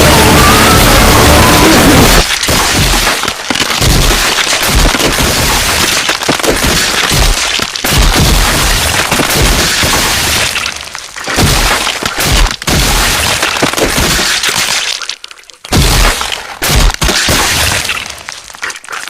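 Harsh, distorted noise sound effect. It starts as a loud, unbroken wall of noise for about two seconds, then breaks into choppy crackling bursts that cut in and out, growing sparser and quieter toward the end.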